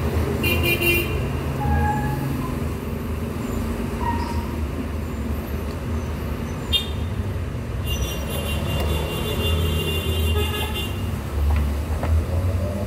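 Steady low rumble of road traffic, with brief vehicle horn toots about half a second in and again around eight to ten seconds in.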